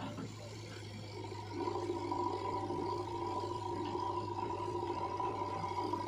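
JCB 3DX backhoe loader's diesel engine running steadily, with a louder steady whine of the engine and hydraulics under load coming in about a second and a half in as the arm moves.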